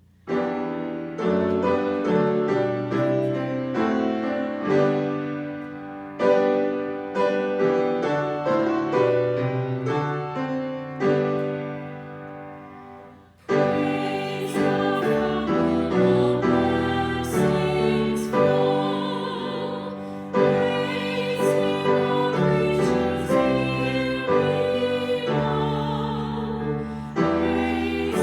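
Piano music, a slow hymn played out of silence with notes struck and left to ring. About thirteen seconds in it fades briefly, then comes back fuller and louder.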